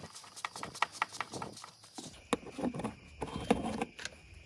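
A hand driver clicking steadily, about five ticks a second, as a T25 Torx bolt is turned out of the intercooler's plastic underside. About two seconds in, louder handling and scraping takes over.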